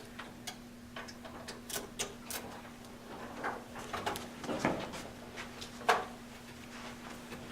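Screwdriver turning the CPU heatsink's mounting screws: a run of small irregular clicks and scrapes of metal, with one sharper click about six seconds in.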